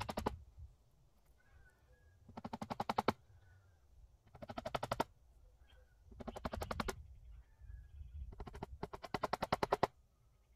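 Impact driver driving screws: about five short bursts of rapid hammering, each a second or less, a couple of seconds apart. Chickens call faintly in the gaps between them.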